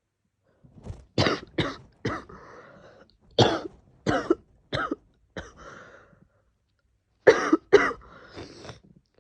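A woman with a head cold coughing in short fits: about nine sharp coughs in three clusters, with breathy gasps between them and a quick pair near the end.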